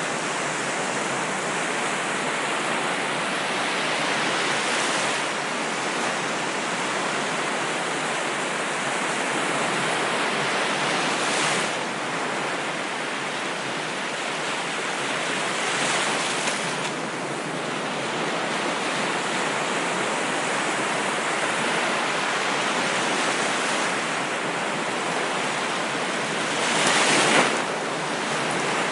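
Ocean surf: a steady wash of waves with four louder breakers rising and falling, the biggest near the end.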